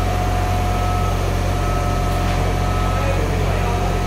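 Engine of a boom lift running steadily: a low rumble with a steady whine above it.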